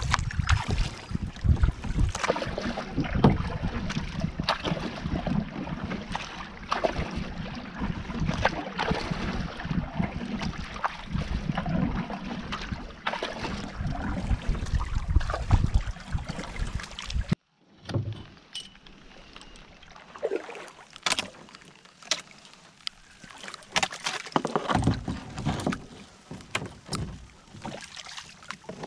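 A small boat being paddled with a double-bladed paddle: paddle strokes and splashing water over a heavy low rumble, with frequent short knocks. About two-thirds through the sound cuts off abruptly, then returns much quieter with scattered small splashes and clicks as the paddle works near a rocky bank.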